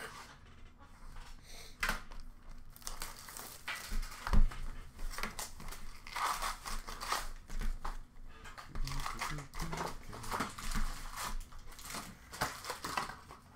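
Plastic wrap and packs of hockey cards crinkling and tearing as boxes are opened by hand, in irregular rustles that thicken in the second half. A single sharp knock about four seconds in.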